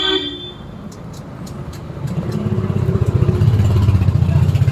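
A motor vehicle's engine rumbling as it passes close by, swelling about two seconds in and loudest near the end. A short horn toot sounds right at the start.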